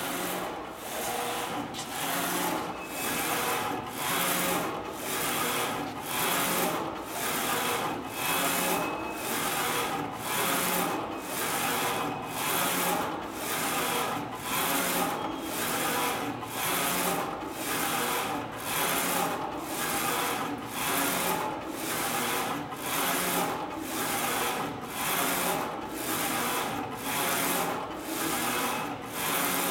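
Flatbed digital textile printer's print-head carriage shuttling back and forth along its gantry rail while printing: a rhythmic mechanical running noise that breaks briefly at each turn, about once a second.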